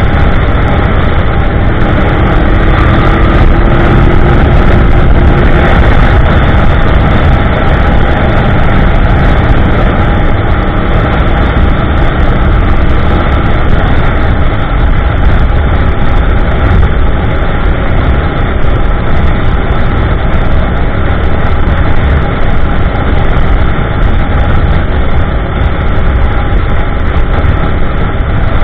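2015 Yamaha YZF-R1M's crossplane inline-four running at steady highway cruising speed through an Akrapovic slip-on muffler, MJS link pipe and factory headers.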